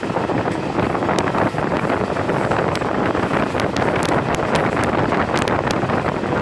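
Passenger train running fast, at about 100 km/h, heard from the coach window: a steady rush of wind on the microphone over the running noise of the train, with scattered sharp clicks.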